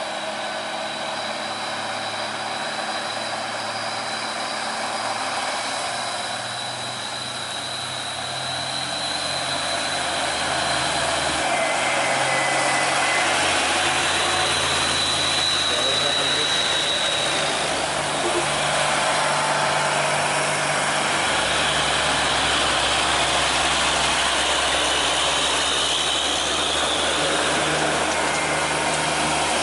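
Diesel engines of heavy trucks running as they approach, a steady low engine drone that grows louder about ten seconds in and again past the twenty-second mark.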